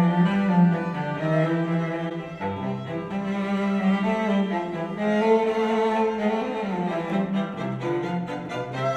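Classical music led by bowed strings, with a prominent cello line, played through a pair of studio monitors and picked up by a microphone in the room: first Kali Audio LP-8 speakers, then IK Multimedia iLoud MTM speakers.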